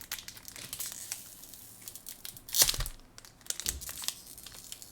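Foil wrapper of a Pokémon booster pack crinkling as it is handled and pulled open, with a louder crackling tear about two and a half seconds in.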